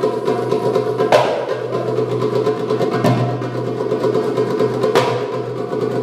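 Darbuka (Egyptian tabla) drum solo: a fast, continuous roll of rapid strokes, punctuated by a sharp accented strike about every two seconds.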